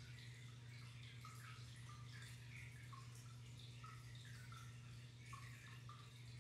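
Faint water trickling and bubbling in a fish tank: a scatter of small plinks, like droplets or bursting bubbles, over a steady low hum.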